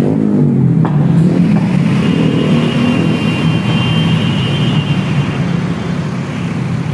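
Large coach bus diesel engine running steadily as the bus pulls away.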